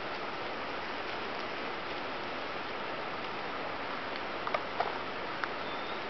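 Steady outdoor hiss with a few short sharp clicks in the second half, from a white-tailed deer fawn biting off and chewing leafy plants in the undergrowth.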